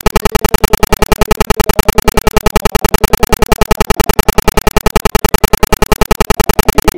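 Loud, harsh electronic buzz pulsing evenly about ten times a second: a recording glitch, with no crowd or arena sound audible through it.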